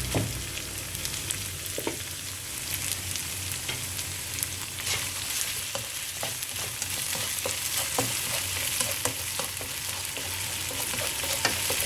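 Onions, curry leaves and chili paste frying in oil in a pan over medium-high heat: a steady sizzle, with a spatula stirring and clicking against the pan now and then.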